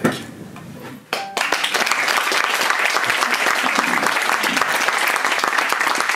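A small group applauding. The clapping starts suddenly about a second in and keeps going steadily.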